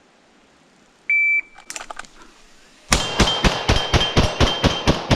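Electronic shot-timer beep, one short tone about a second in, then a few clicks. Rapid semi-automatic pistol fire starts about three seconds in, a steady string at roughly four shots a second.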